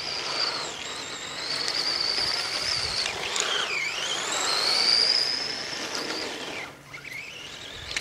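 Radio-controlled buggy's motor whining as it is driven around. The high whine rises and falls with the throttle, dips sharply in pitch as the buggy passes close about four seconds in, and drops away briefly near the end.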